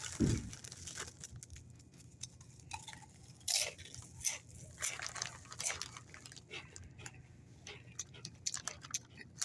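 Doritos tortilla chips crunching as they are bitten and chewed: a run of short, irregular crunches from about three and a half seconds in.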